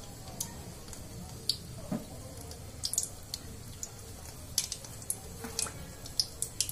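Kachoris deep-frying in moderately hot oil in a kadai: a low steady sizzle with irregular sharp crackles and pops, which come more often in the second half.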